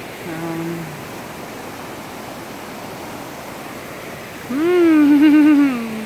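Glacier-fed mountain creek rushing over rocks, a steady rush of water. About half a second in a voice gives a short hum, and near the end a voice holds a long wavering note, the loudest sound.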